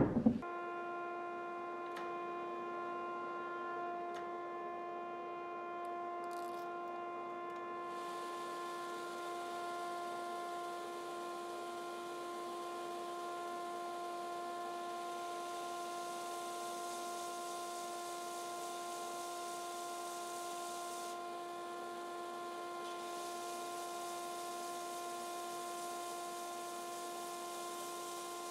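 Belt grinder running with a steady, even hum and whine while a wooden wa knife handle is ground true against the belt, a faint hiss of abrasion under the hum.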